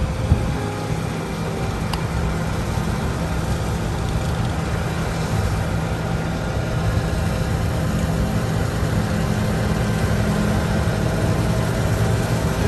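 Large engine running steadily, with a low even hum; a short knock sounds just after the start.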